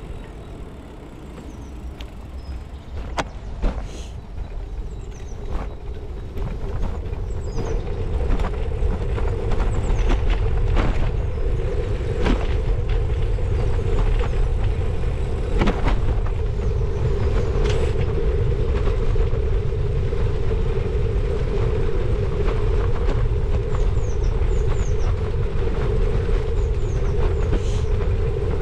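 Bicycle riding along a tarmac cycle path: wind buffeting the bike-mounted microphone and tyre rumble, with scattered clicks and rattles from the bike going over bumps. The rumble grows louder about eight seconds in as the bike picks up speed.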